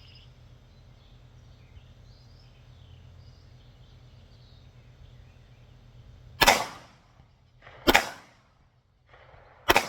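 Three gunshots from a gold-and-black gun, the second about a second and a half after the first and the third about two seconds later, each with a short echo trailing off. Faint outdoor ambience before the first shot.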